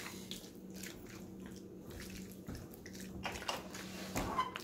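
A spoon stirring potato salad in a glass bowl: soft wet squishing with a few light taps and scrapes against the glass, over a faint steady hum.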